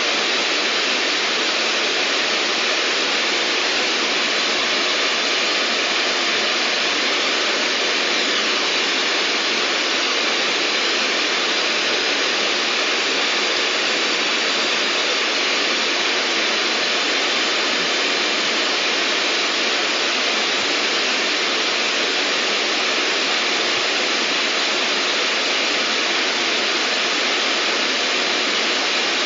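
Steady, unchanging white noise: an even hiss with little bass and no distinct events.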